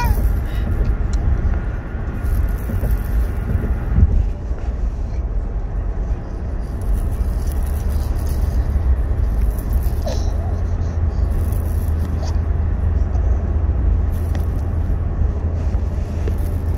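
Steady low road rumble of a moving car, heard inside the cabin, with a single knock about four seconds in.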